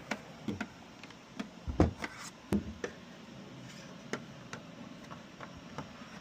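A series of light clicks and knocks from hard objects being handled, the loudest about two seconds in, then fewer and fainter.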